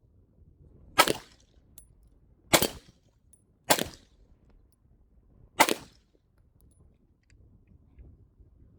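Four firearm shots fired one at a time at uneven intervals, each a sharp loud crack with a short tail.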